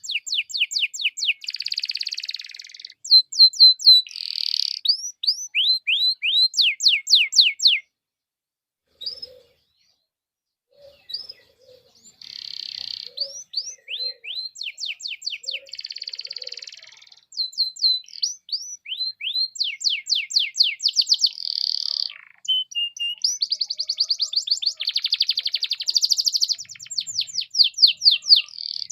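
Domestic canary singing a long song of rapid trills and rows of quick downward-sweeping notes, with a pause of a few seconds about a third of the way in.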